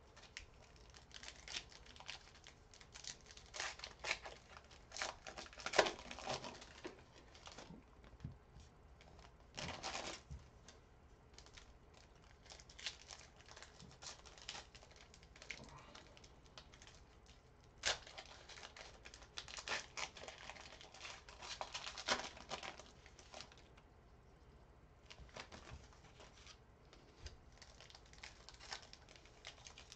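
Plastic and foil trading-card packaging crinkling and tearing as packs and boxes are opened, with cards being handled, in irregular bursts of rustling and light clicks.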